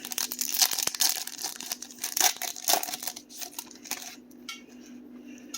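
Foil wrapper of a Topps Chrome trading-card pack being torn open and crinkled, a dense crackling for about four seconds, then lighter rustling and clicks as it settles.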